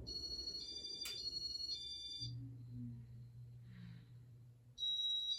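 Electronic beep tones in short stepped sequences, a little like a ringtone melody, sounding twice; a sharp click comes about a second in, and a low hum runs between the two sequences.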